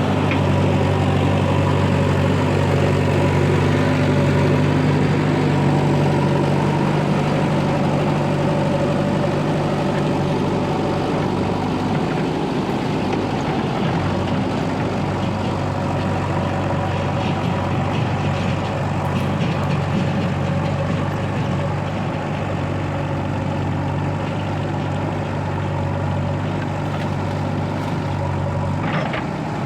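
Heavy diesel engine running steadily at low revs with an even low hum, and one short knock near the end.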